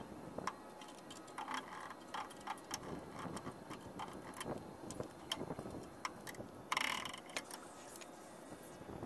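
Scattered light clicks and clinks of hand tools and small metal parts being handled, with a brief hissing burst about seven seconds in.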